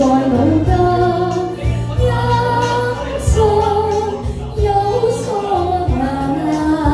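Woman singing a Cantonese duet into a handheld microphone, amplified over a karaoke backing track, with long held notes that bend in pitch.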